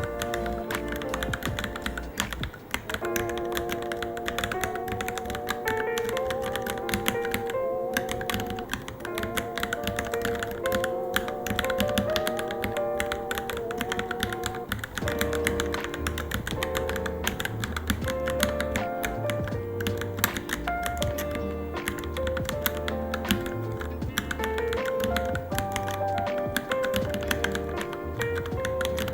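Fast, continuous typing on a Varmilo Minilo keyboard, a quick run of keystroke clicks, heard over background music with a melody and bass.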